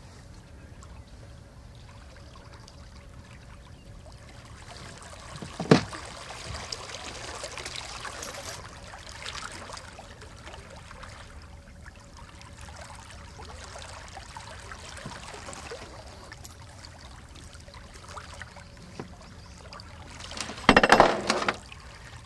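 Water sloshing and splashing as a large hooked sturgeon rolls at the surface beside a boat, over a faint steady hum. A sharp knock comes about six seconds in, and a loud splash near the end.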